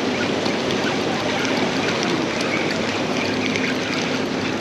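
Turbulent inlet seawater churning into whitewater, a steady rushing wash of surf.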